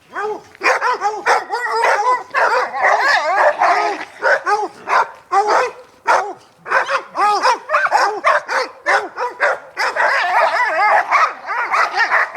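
Several hounds baying together: a continuous run of short, rising-and-falling cries that often overlap, with only brief gaps.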